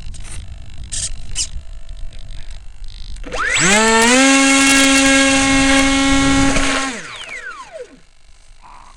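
Electric motor and propeller of a Sky Surfer RC plane throttled up quickly about three seconds in, held at a steady whine for about three and a half seconds, then cut, its pitch falling as it spins down. Light clicks and handling noise come before it.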